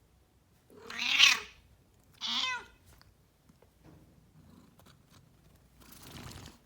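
Domestic cat meowing twice: a loud falling meow about a second in, then a shorter one. This is the cat waking when touched at the base of its tail. A soft breathy sound follows near the end.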